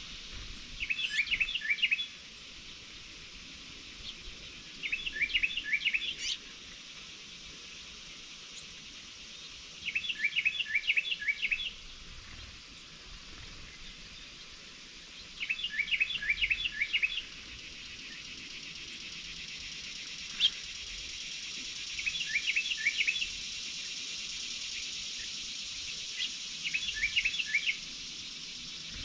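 A songbird singing the same short phrase six times, each a quick series of down-slurred whistled notes, about every five seconds. A steady outdoor hiss runs underneath and grows louder in the second half.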